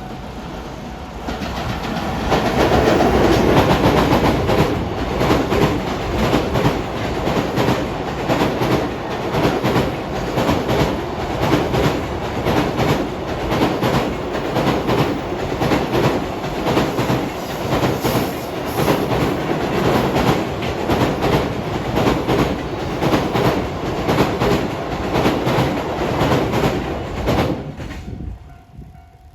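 A train passing close by, its wheels clattering in a steady rhythm over the rail joints. It builds up over the first two seconds, runs on for about twenty-five seconds, and dies away near the end.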